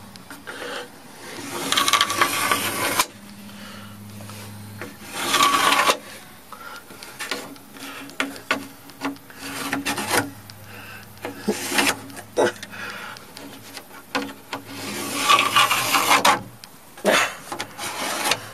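Wood being scraped and rubbed in several rough bursts, the loudest about two seconds in, again around five seconds and near the end, with scattered knocks between.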